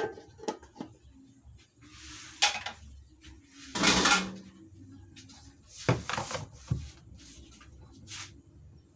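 An aluminium pot lid set onto a wok, followed by a few short clatters and knocks of kitchen pots and pans, the loudest about four seconds in.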